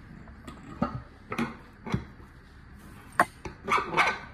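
Metal knocks and clicks as an e-bike hub motor's internal gear and clutch assembly is pushed and seated into its hub shell. There are several separate sharp knocks, and a quicker cluster of ringing knocks near the end.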